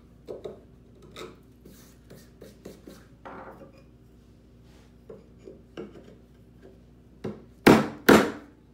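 Wooden-handled mortise chisel struck by a mallet: a light tap, then two hard blows half a second apart near the end, chopping a mortise. Before that, small clicks and scrapes of tools being handled on the bench.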